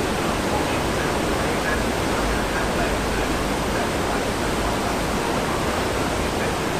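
Steady rushing and churning of a large cruise ship's foaming wake, the water thrown up by its azipod propulsion.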